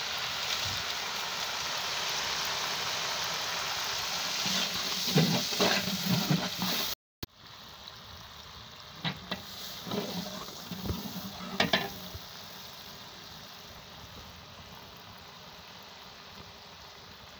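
Onions and tomatoes sizzling in hot oil in a large metal degh, with a long iron ladle scraping against the pot now and then. The sizzle is loudest in the first seven seconds and quieter after a break.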